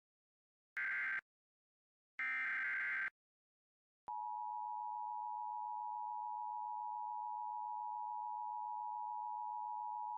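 Emergency Alert System broadcast: two short screeching bursts of SAME digital header data, then about four seconds in a steady electronic attention tone near 1 kHz begins and holds unbroken. This is the start of a new alert.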